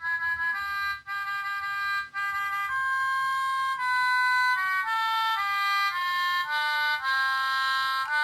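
Sound-making capsule toy playing a simple melody of clear, reedy held notes, each about half a second, with several notes sounding together.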